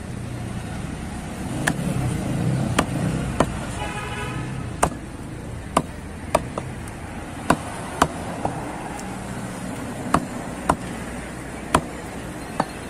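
A heavy curved butcher's cleaver chopping through beef onto a wooden log chopping block: about a dozen sharp, irregularly spaced chops, over a steady background of street and market noise.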